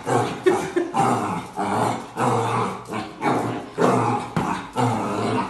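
Puppy growling and barking at its own reflection in a mirror: a quick string of short, low growl-barks, about two a second.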